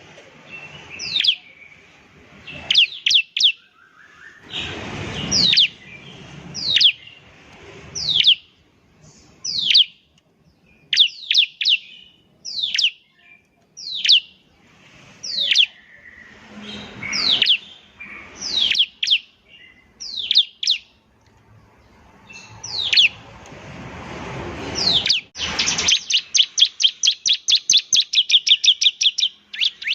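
Bar-winged prinia (ciblek) singing: sharp, high, downward-sweeping whistled notes, given singly and in short clusters, then a fast run of about five notes a second near the end.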